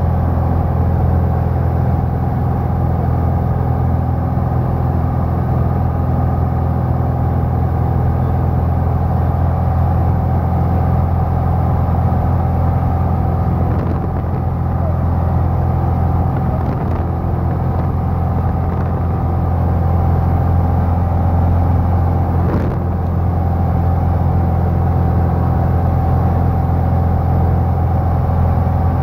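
Cockpit noise of a small single-engine piston airplane in cruise flight: a steady, loud engine and propeller drone with wind noise over the cabin.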